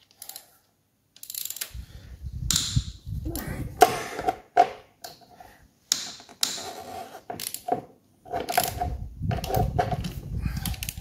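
Ratchet wrench clicking in spells of rapid strokes, with sharp metal clinks, as the rocker shaft bolts on a Renault Ceres tractor engine are loosened a little at a time.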